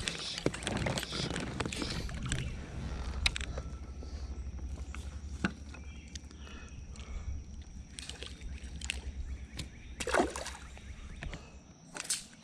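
Wind rumbling on the microphone, with scattered clicks and knocks as a fish is handled aboard a small fishing kayak. The rumble drops away near the end.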